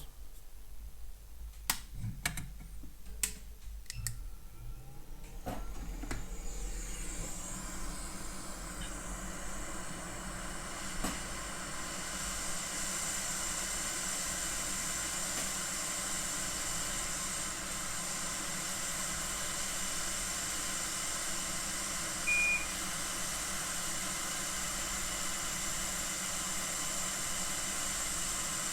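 Hot air rework station blowing steadily to desolder buttons from a key fob circuit board: a few clicks of handling, then a steady hiss that builds up over a couple of seconds and keeps going. One short high beep sounds about two-thirds of the way through.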